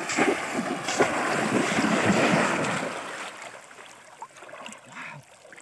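Muddy water splashing and churning as conical bamboo polo fish traps are plunged into shallow floodwater by people wading through it. The splashing is loud at first and dies away after about three seconds.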